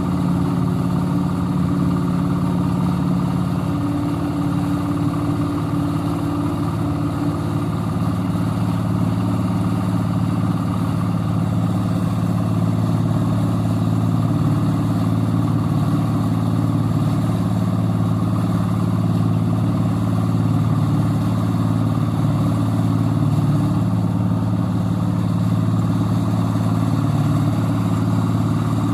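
Portable concrete mixer's small engine running steadily with the drum turning.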